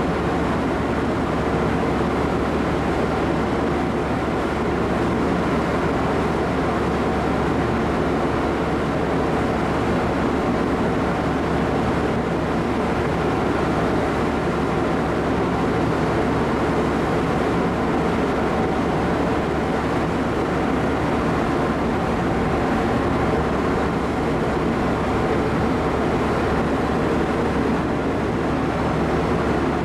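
A car ferry's machinery running heard on deck: a steady, even drone with a low hum that does not change.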